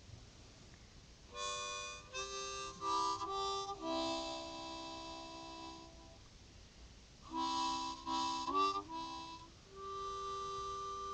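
Instrumental background music: held chords in short phrases with brief pauses between them, ending on one long held chord.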